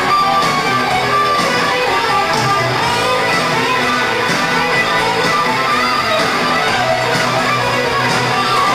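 Hard rock band playing live, with electric guitars over drums and a beat marked about once a second. No vocals are heard.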